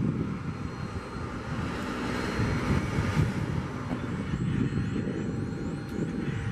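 Jet airliner engines running: a steady low rumble with a hiss that swells in the middle and then eases off.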